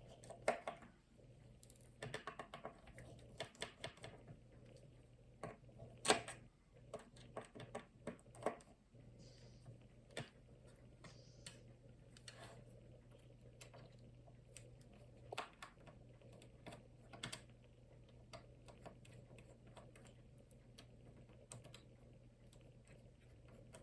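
Small repair tools clicking and tapping on the inside of an iPhone as its internal shields are worked loose, in irregular light clicks, one sharper knock about six seconds in, over a steady low hum.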